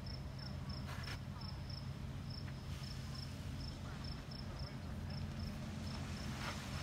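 An insect chirping in dune grass: a short high pulse repeated evenly about three times a second, over a steady low hum.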